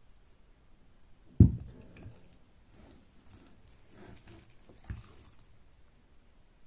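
Close-miked wet eating sounds of Korean noodles, soft and squishy, broken by a sharp low thump about a second and a half in and a smaller one near the end.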